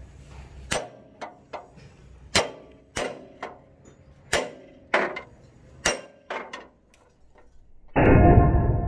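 A long steel bar striking and working against a steel truck-body panel: about a dozen irregular, sharp metallic knocks, each with a short ring. Near the end a much louder, muffled sound cuts in.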